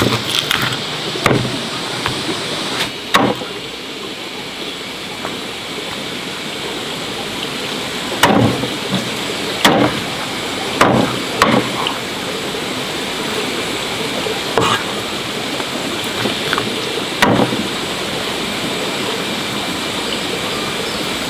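Steady rain, an even hiss throughout, with about nine scattered knocks and clatters of household objects.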